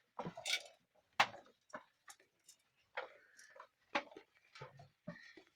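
Goats moving about: a run of irregular sharp knocks and clicks, with a short call about three seconds in.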